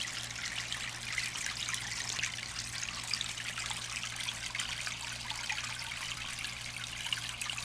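Water trickling steadily in a backyard koi pond, with a low steady hum underneath.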